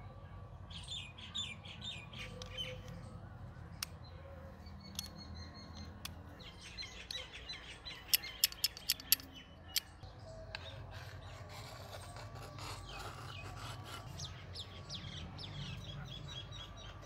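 Small birds chirping repeatedly, with light clicks and taps of small air-compressor parts being handled; a quick run of five sharp clicks comes about eight seconds in.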